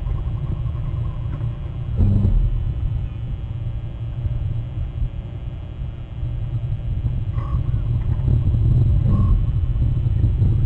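Steady low rumble of wind buffeting an outdoor webcam microphone, with a short thump about two seconds in and two brief high chirps near the end.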